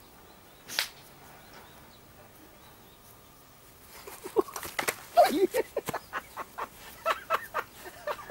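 A man laughing in short rapid bursts from about four seconds in, after a single sharp click about a second in.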